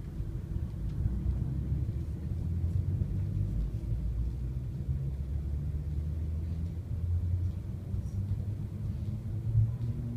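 Low rumble in the cabin of a Shanghai Transrapid maglev train pulling away from the station, growing a little louder about a second in and then holding steady.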